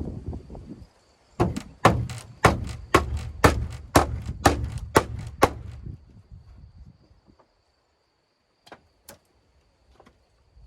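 Repeated strikes on wood while building a wooden hut: about nine sharp knocks, two a second, with weaker knocks between, then two single knocks near the end.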